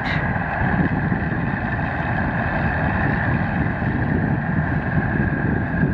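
Diesel farm machinery running steadily close by: an even engine drone with a constant higher whine over it.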